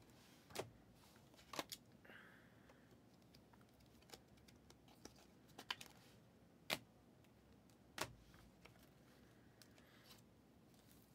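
Near silence, with a handful of faint clicks and taps from trading cards and rigid plastic sleeves being handled.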